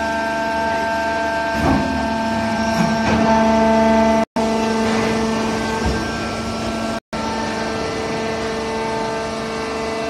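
Horizontal hydraulic cardboard baler running: a steady hum and whine from its hydraulic power unit, with a few clunks. The sound drops out briefly twice.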